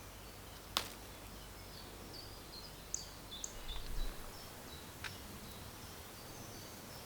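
Quiet rural background with small birds chirping in short high calls. A sharp click sounds about a second in, and a fainter one about five seconds in.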